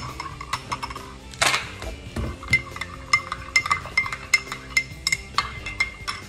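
Metal spoon stirring in a ceramic mug, clinking against the side many times in quick succession, with a short louder rasping noise about one and a half seconds in.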